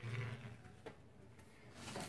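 Faint knife strokes through a chilled chicken-mince slab onto a plastic cutting board, with a single sharp tap a little under a second in. A brief low hum at the very start is the loudest part.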